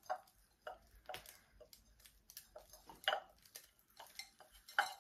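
Light handling noise: irregular soft crackles and taps of dried flower stems being set into a pot, with a few louder taps about a second in, about three seconds in and near the end.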